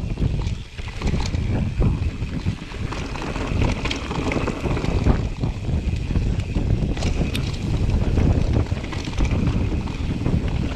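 Wind buffeting a GoPro action camera on a moving mountain bike, with steady rumble and scattered rattles and clicks from the bike running over rough trail.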